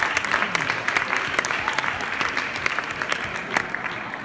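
Audience applauding, a dense patter of hand claps that thins out and fades toward the end.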